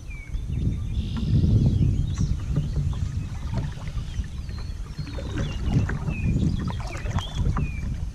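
Low, uneven rumble of water and wind on the microphone from a kayak on the river, with a small bird chirping several times.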